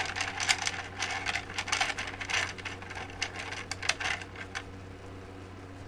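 Mechanical keyboard being typed on: an irregular run of key clicks that stops a little over four seconds in, over a steady low hum.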